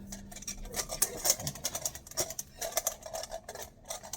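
Hands pressing and kneading a stiff sourdough starter dough in a bowl: irregular small clicks and taps.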